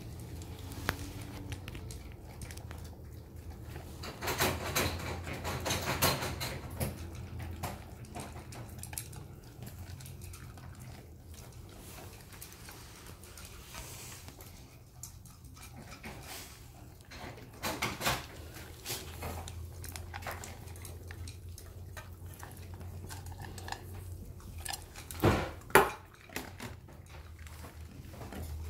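Two puppies eating dry kibble from a stainless steel bowl and a ceramic bowl: chewing and crunching, with the bowls clinking and knocking now and then, the loudest knocks near the end.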